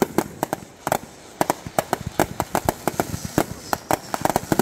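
Aerial fireworks display: a rapid, irregular string of bangs from shells bursting overhead, several a second, with a brief lull about a second in.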